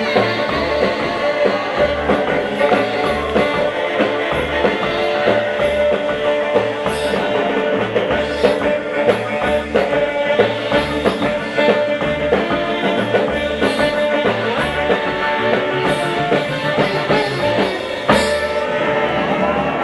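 Live rock and roll band playing: upright bass, electric guitar, saxophone and drums, with a sharp hit near the end.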